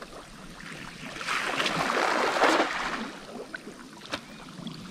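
Water splashing for about a second and a half, starting about a second in, followed by a few scattered drips and clicks.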